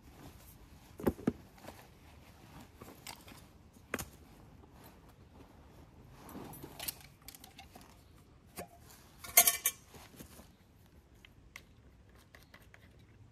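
Camping gear being taken out of a rucksack and put down: fabric rustling with scattered knocks, and a short, louder clatter about nine and a half seconds in.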